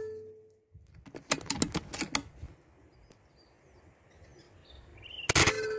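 A quick run of sharp metallic clicks about a second in as a PCP air rifle's action is cycled to load the next pellet, then near the end a sharp air rifle shot that leaves a short ringing tone.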